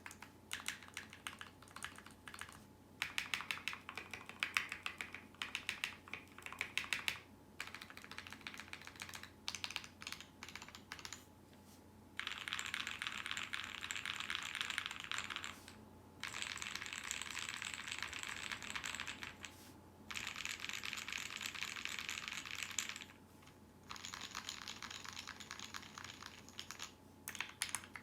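GK61 mechanical keyboard with lubed Gateron optical red switches, a foam-filled case and PBT keycaps being typed on. Key clacks come in runs broken by short pauses every few seconds, and the later runs are fast and dense.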